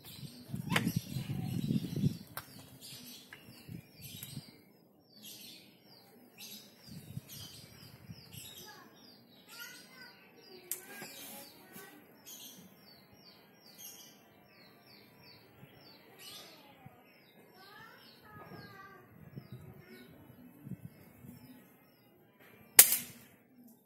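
Small birds chirping in short calls, then one sharp, loud crack of a Sharp Innova II air rifle being fired near the end.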